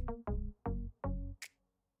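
Background music with a steady beat: short deep notes in a repeating pattern, with a hissing cymbal-like hit about every second and a half.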